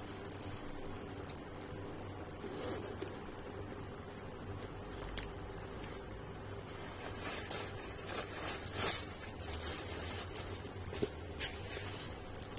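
A quilted handbag being handled at its zip: scattered scrapes and small clicks, with a run of louder rustling strokes about two-thirds of the way through and a couple of sharp clicks near the end, over a low steady hum.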